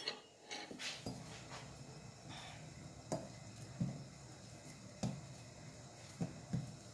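Kitchen utensils and dishes being handled on a counter: faint, scattered knocks and clinks, roughly one a second.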